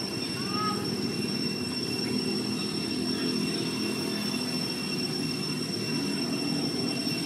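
Steady low rumble of background noise with constant high-pitched tones above it, and a short chirp about half a second in.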